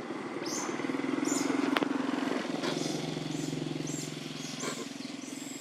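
A motor vehicle's engine running, swelling over the first two seconds and then easing off, with a sharp click just before the two-second mark and a few short high chirps scattered over it.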